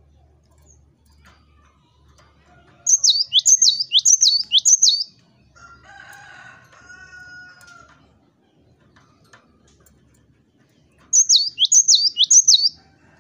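Cinereous tit (gelatik batu) singing two loud bouts of a high, sharp, quickly repeated phrase, each about two seconds long and some eight seconds apart. A fainter, lower call sounds between the bouts.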